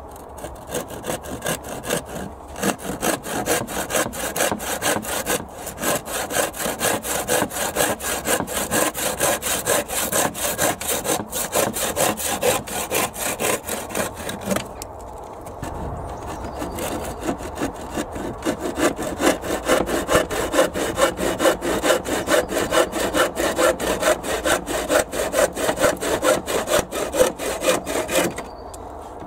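Stanley handsaw cutting pine picket boards, rapid back-and-forth strokes rasping through the wood as the pointed V ends are cut. It saws in two long bouts with a short pause about halfway.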